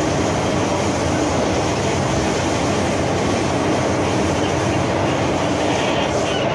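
Cabin noise of an MTR Island Line M-Train under way: a steady rumble and rush of wheels on the rails, at an even level.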